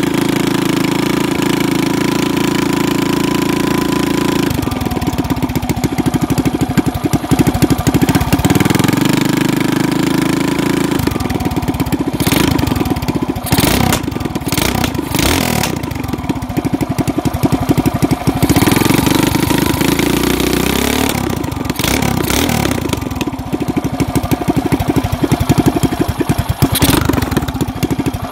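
Single-cylinder four-stroke go-kart engine with its governor removed, running through an open straight header pipe with no muffler, really loud. It is revved up to a smooth high speed and dropped back to a choppy low-speed run several times, with a few sharp cracks in the middle.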